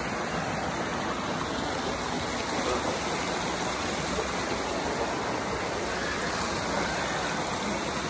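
Steady rush of water from a rocky waterfall stream, an even hiss with no breaks.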